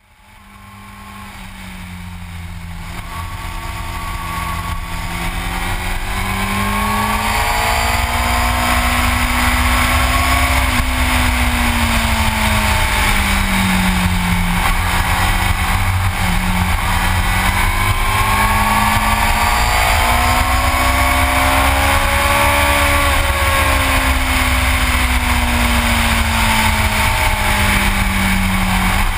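Yamaha R6 sport bike's inline-four engine under way, its pitch rising and falling in long slow sweeps as the throttle is opened and eased, over a heavy rumble of wind on the microphone. The sound fades in over the first several seconds.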